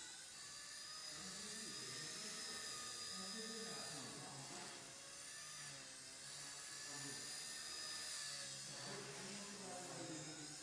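XK K100 micro RC helicopter in flight, its motor and rotors giving a high whine in several tones that rise and fall together as the throttle changes. It runs without abnormal noise, the fault having been cured.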